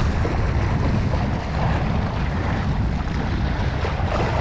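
Steady wind rumbling on the microphone, over the wash of the sea.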